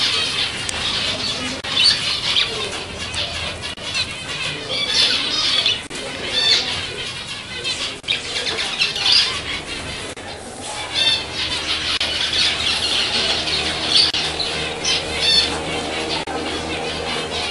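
A crowd of caged zebra finches calling all at once: a busy, constant chatter of short repeated chirps and beeps.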